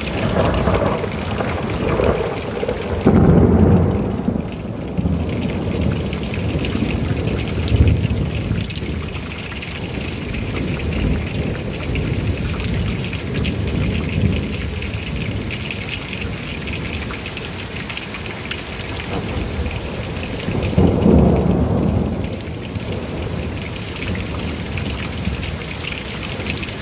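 Heavy rain pouring steadily, with thunder rolling over it. A loud low rumble comes a few seconds in, a sharp crack follows a few seconds later, and another heavy rumble comes about three-quarters of the way through.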